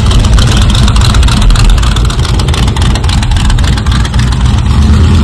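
A lifted C3 Corvette's V8 engine running loud and close, with a deep, steady tone.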